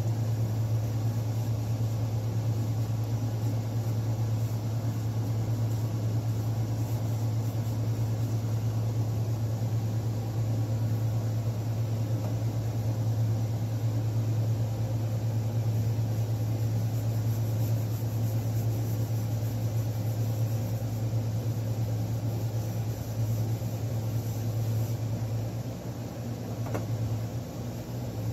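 A steady low mechanical hum with a constant pitch, easing slightly near the end.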